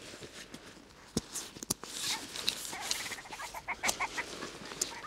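A grouse calling with a rapid run of clucking notes from about two seconds in. Under it are the rustling and sharp clicks of a backpack being unpacked.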